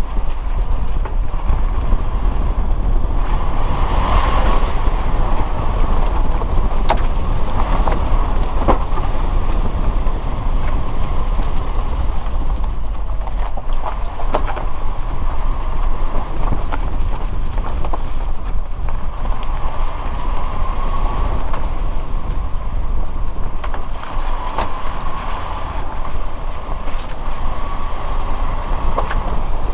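Suzuki Jimny driving along a narrow mountain road: steady engine and road rumble with frequent clicks and knocks from the bumpy surface.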